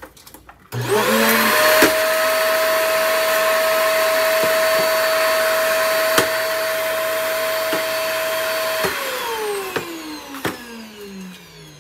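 EyeVac Pro touchless stationary vacuum, a 1400-watt canister unit, switched on by a tap of its button. Its motor spins up with a rising whine and runs steadily with a few sharp ticks, then shuts off about nine seconds in and winds down with a slowly falling whine.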